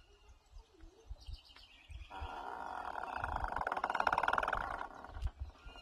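Wooden farm gate creaking on its hinges as it swings: one long, grating creak starting about two seconds in and lasting nearly three seconds, with a few low knocks.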